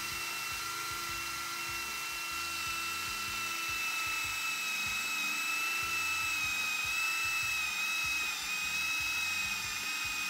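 Power drill running a carbide-tipped bullet bit through structural lumber: a steady high-pitched motor whine that wavers slightly in pitch as the bit grinds its way into the wood under load.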